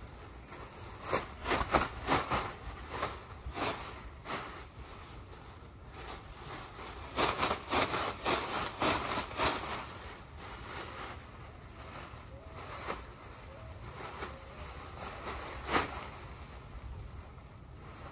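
A large black plastic bag rustling and crackling as it is shaken out and handled, in two dense spells of crinkling, about a second in and again around seven seconds in, with scattered single crackles between and one sharp one near the end.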